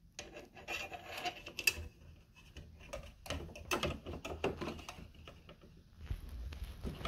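Irregular light clicks, taps and rustling of fingers working small wires through a hole in the air conditioner's plastic cover plate, with a low rumble coming in near the end.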